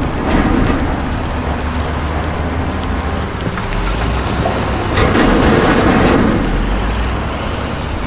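Diesel engine of a Case crawler bulldozer running steadily, swelling louder about five seconds in.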